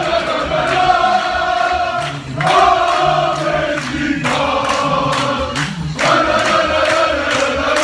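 Crowd of football supporters singing a chant together in unison, in long sustained phrases broken by short pauses.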